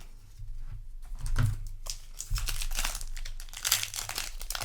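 Foil booster-pack wrapper crinkling and rustling as it is handled, an irregular crackle that grows busier about two seconds in.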